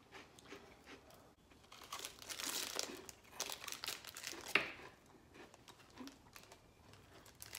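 Crinkly snack wrapper being handled and opened, a run of crackling bursts from about two to five seconds in, with one sharp crackle near the end of that run.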